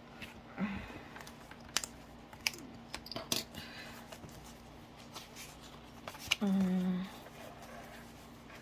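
Paper challenge cards being handled and shuffled on a wooden desk: light rustling with many sharp clicks of card edges. A brief low hum from a voice about six and a half seconds in, with a fainter one near the start.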